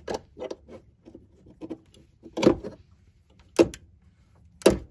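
Click-type torque wrench on a 7.3 IDI diesel fuel injector: a few faint ratchet ticks, then three sharp clicks about a second apart as the wrench breaks over at its 35 ft-lb setting and the torque is checked again.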